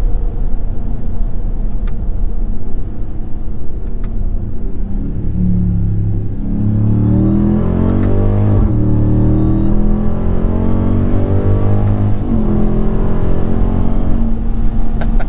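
Ram TRX's supercharged 6.2-litre Hemi V8, heard from inside the cab through the AWE 0FG exhaust, cruising and then accelerating. The engine note climbs and drops sharply at two upshifts, with a faint high whine rising alongside it, then settles.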